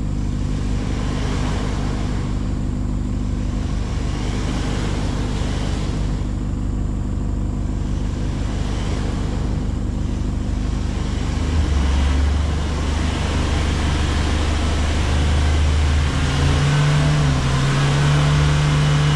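A motor vehicle's engine running while driving. It gets louder and lower-pitched about twelve seconds in, as if working harder.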